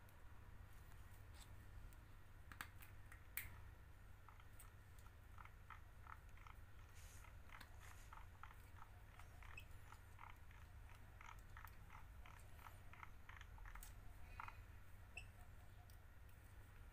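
Faint small clicks and ticks of needle-nose pliers and wire being handled, coming in quick irregular runs through the middle, over a low steady hum.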